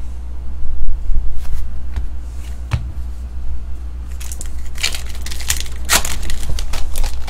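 Foil wrapper of a Topps Star Wars trading-card pack crinkling and tearing open, beginning about four seconds in after a few light clicks of cards being handled. A steady low hum runs underneath.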